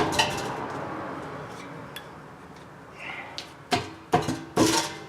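Metal clank at the start that rings on and fades over a few seconds, then a few short metal knocks close together near the end, as the compressor's electric motor is shifted on its steel mount.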